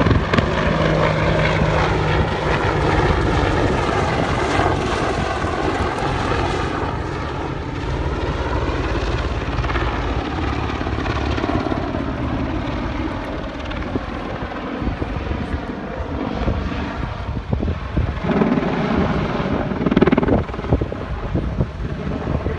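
Boeing AH-64 Apache attack helicopter in flight: the steady whine of its turbine engines over the rapid beat of its main rotor, running on throughout and a little more uneven near the end.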